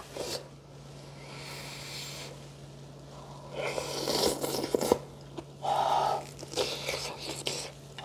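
A person eating a big spoonful of soft boiled radish namul: a spoon scraping in the bowl, chewing, and breathing noisily through the nose, over a low steady hum.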